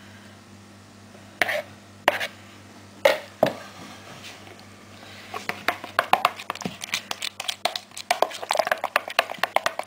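A few sharp knocks, then from about halfway a quick, irregular run of clacks: a utensil stirred hard through thick soap batter in a plastic jug, knocking against the jug's sides. The batter is accelerating and setting up fast, and stirring is bringing it back to a pourable texture.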